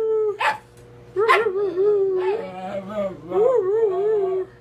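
Mexican hairless dog (Xoloitzcuintli) 'talking': a sharp yip, a short pause, then about three seconds of wavering, rising-and-falling howling whines broken by short yips, which stop just before the end.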